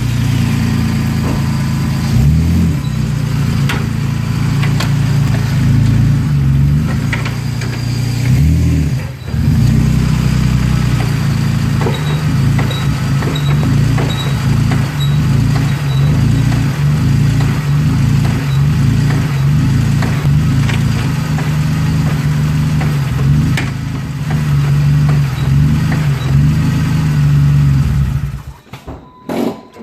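2008 Jeep Wrangler Unlimited's 3.8-litre V6 idling, revved briefly twice early on, with a faint high chirp repeating about twice a second: the annoying chirp the owner is chasing. The engine shuts off near the end.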